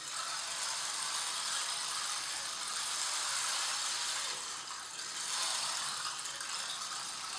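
Stream-sound drum (шум струмка), a closed frame drum with small beads inside, tilted so the beads roll across the head in a continuous rattling hiss imitating a running brook. The rush eases briefly about five seconds in, then swells again.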